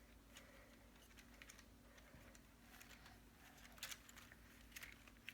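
Near silence, with a few faint, scattered clicks and light rattles from the plastic parts of a LEGO Technic excavator model being turned in the hands.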